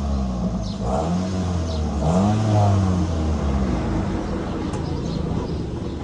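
Vehicle engine revved in three short blips in the first three seconds, each rising and falling in pitch, then running steadily at idle. The engine has freshly had a full oil tune-up.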